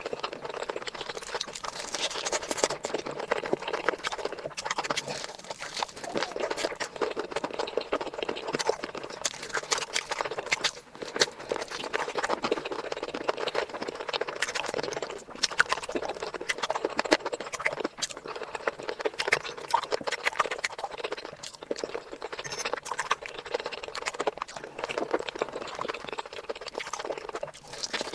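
Close-miked eating sounds: a person chewing and smacking their lips, a dense, continuous run of wet clicks and smacks with brief pauses now and then.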